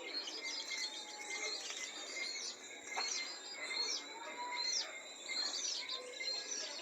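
Small birds chirping: many short, high chirps falling in pitch, repeated every half-second or so, over a steady high insect hum.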